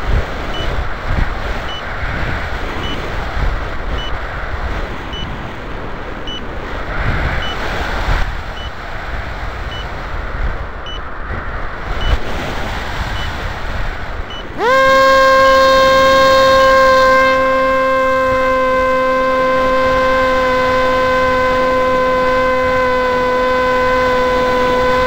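Wind rushing over an RC flying wing's onboard camera in flight, with faint regular ticking. About two-thirds of the way in, a loud steady whine cuts in with a quick upward swoop and then holds one pitch to the end.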